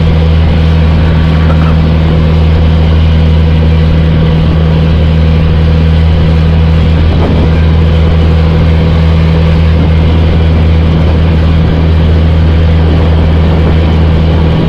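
Outrigger fishing boat's inboard engine running at a steady speed, a constant low drone with no change in pitch.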